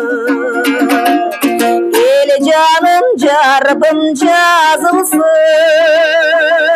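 A woman singing a Kyrgyz song with a strong vibrato, accompanying herself on a strummed komuz, the three-stringed fretless Kyrgyz lute. She holds a long wavering note from about five seconds in.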